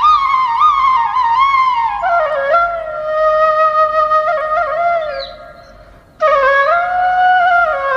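Background music with a solo flute playing a slow, ornamented melody. The melody fades out about five seconds in, and a new phrase of longer held notes begins a second later.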